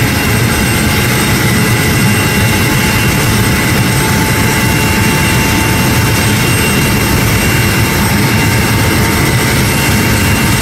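UH-60 Black Hawk helicopter running on the ground before takeoff: its twin turboshaft engines give a steady whine over the loud, even noise of the turning rotors.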